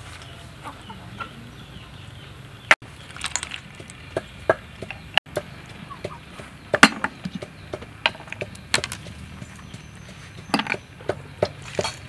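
Irregular sharp clicks and clacks of snail shells and bamboo skewers as the meat is picked out of cooked snails, coming in a cluster near the end.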